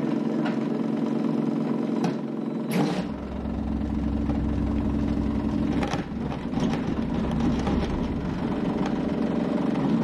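PTAC heat pump unit running loudly with a steady hum, a deeper drone joining about three seconds in, and a few knocks. Its fan is out of balance, the fan blade cracked.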